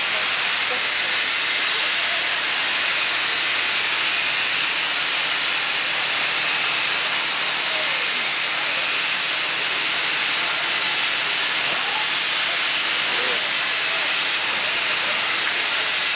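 Steam locomotive standing at rest and venting steam: a loud, steady hiss that does not let up.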